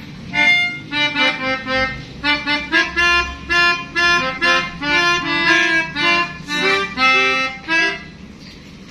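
Pianika (melodica) playing a quick run of short notes, imitating the 'telolet basuri' bus horn tune; the playing stops about eight seconds in.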